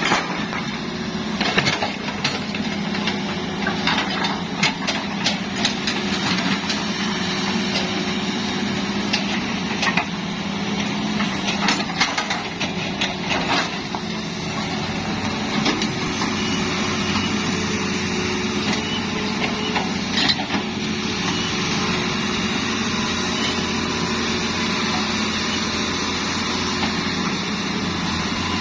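Hitachi hydraulic excavator's diesel engine running steadily, with scattered knocks and clanks through the first half and once more about two-thirds of the way in.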